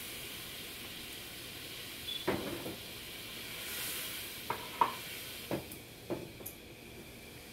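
Sugar water heating in a nonstick frying pan on a gas stove, a steady faint hiss as it comes toward the boil, with a few light knocks a couple of seconds in and again in the middle.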